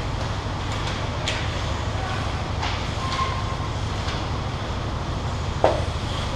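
Ice hockey play in an indoor rink: a steady low rumble underneath, with short scrapes and stick clacks, and a sharp hard knock a little before the end, the loudest sound.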